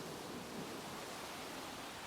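Steady rain hiss of a thunderstorm, with the tail of a low thunder rumble dying away in the first moments.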